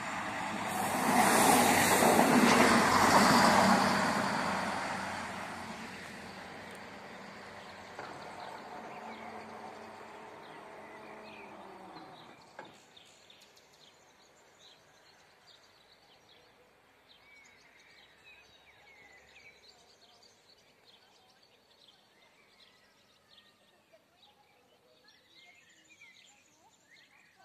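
Diesel railcar passing close over a level crossing. It is loudest a few seconds in, then its engine and wheels fade as it moves away, and the sound drops off sharply about halfway through. Birds chirp in the quiet that follows.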